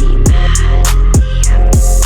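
Music without vocals: an electronic beat with deep kick drums that drop in pitch, a steady heavy bass and crisp hi-hats.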